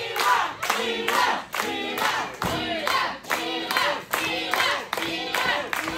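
Crowd shouting and chanting in a repeating pattern, with rhythmic clapping about twice a second.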